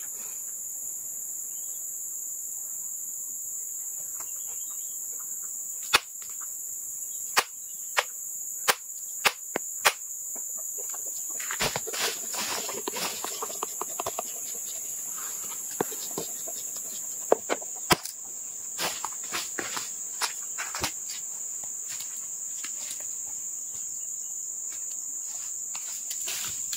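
Steady high-pitched drone of insects in the forest, with scattered sharp clicks and knocks, the loudest about six seconds in and near eighteen seconds.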